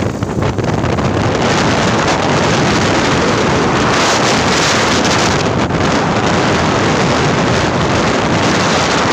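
Loud, steady wind noise buffeting the microphone of a phone carried on a moving motorcycle.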